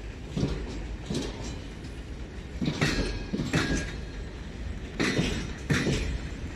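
Loaded railway flatcars rolling slowly past during shunting: a steady low rumble, with the wheels knocking and clanking unevenly over the track about seven times.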